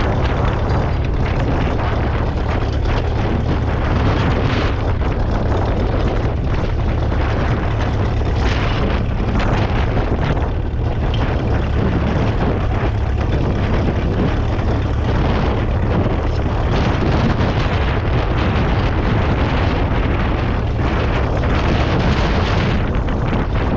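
Ferguson TED20's 2.1-litre four-cylinder petrol/TVO engine running steadily under load while ploughing, a continuous loud rumble.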